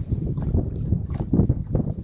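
Wind buffeting the microphone: an uneven, gusting low rumble, with a few light knocks.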